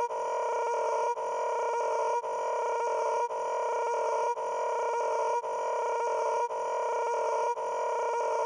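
A steady pitched tone, broken by a brief dip about once a second, repeating like a loop.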